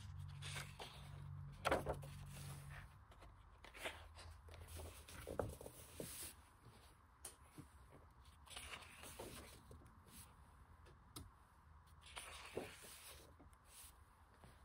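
Pages of a large hardcover art book being turned by hand: faint paper rustles and swishes, with a few louder page turns scattered through.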